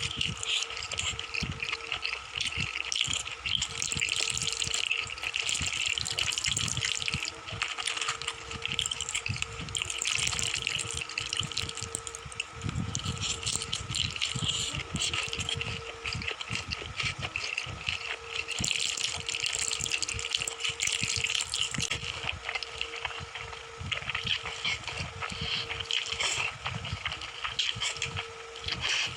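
Close-miked wet chewing and slurping of food: a dense, continuous run of smacking and crackling mouth sounds, with a faint steady hum underneath.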